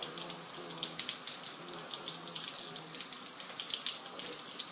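Water running and splashing steadily, as from a tap running into a sink.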